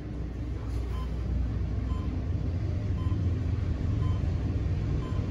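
Schindler PORT-modernized elevator car travelling upward at speed, with a steady low rumble and hum from the ride. A faint short beep sounds about once a second, in step with the floors going by.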